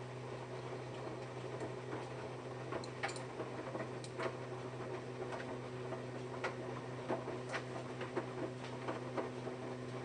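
Samsung Eco Bubble front-loading washing machine on its wash cycle: a steady motor hum as the drum turns, with irregular light clicks and taps as the wet laundry tumbles.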